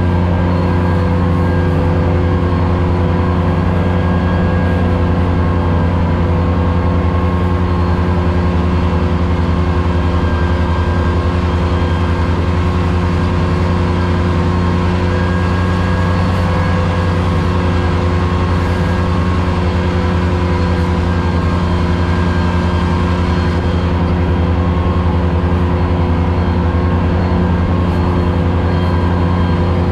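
Ventrac 4500Z compact tractor's diesel engine running at a steady throttle while its 72-inch finish mower deck cuts tall grass, heard from inside the enclosed cab. The drone holds an even pitch throughout.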